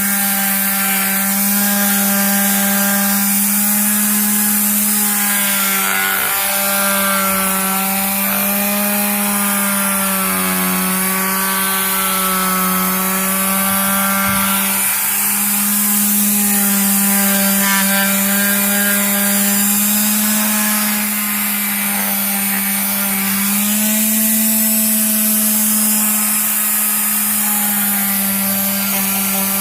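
Electric power sander running steadily against a cured epoxy-and-wood repair, a loud motor hum with abrasive rubbing, its pitch wavering slightly as the pressure changes.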